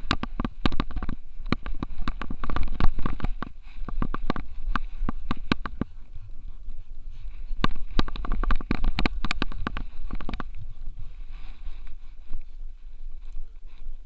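Rumbling and knocking from an action camera strapped to a running French Bulldog's harness: a steady low rumble with irregular clicks and thumps as the dog moves, thinning out after about ten seconds.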